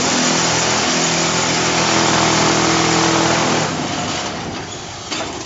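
QT4-24 concrete hollow block making machine running, a loud steady mechanical hum under dense noise that eases off after about three and a half seconds. The sound fits the machine's electric vibrators shaking the mould to compact the concrete.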